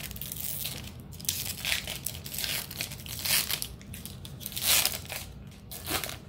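Foil Pokémon trading card booster pack being torn open by hand: a series of short rips and crinkles of the foil wrapper, loudest a little past the middle.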